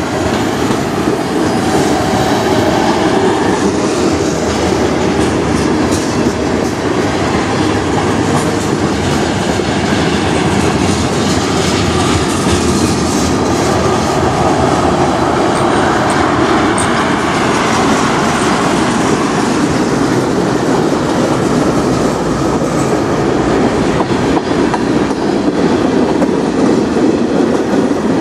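Freight train of covered hoppers and tank cars rolling past: a steady rumble and clatter of steel wheels on the rails.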